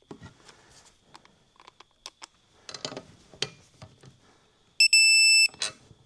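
Scattered clicks of a ratchet torque wrench tightening a U-bolt nut, then near the end the digital torque wrench's loud, steady beep of about 0.7 s, the signal that the nut has reached the set 17 ft-lb.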